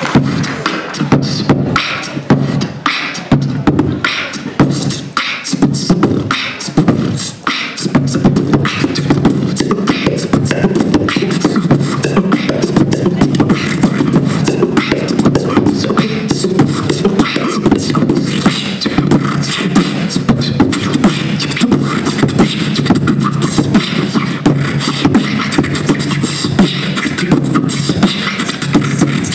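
Three beatboxers performing together through microphones: a steady rhythm of sharp vocal percussion, joined from about eight seconds in by a continuous low vocal bass layer underneath.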